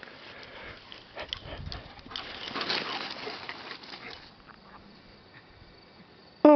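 Two dogs romping on grass: irregular rustling and scuffling with scattered small knocks, busiest in the middle. A loud cry falling in pitch cuts in at the very end.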